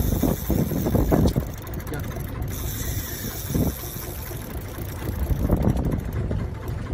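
Gusty wind buffeting the microphone, with irregular mechanical rattling.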